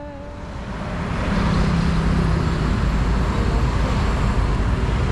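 City street traffic noise, fading in over the first second or so and then steady. A low hum from a vehicle runs for about a second and a half near the start.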